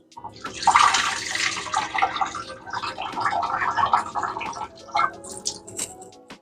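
Water from a tap rushing and splashing as rice is washed, easing after about two seconds into scattered splashes and small clinks.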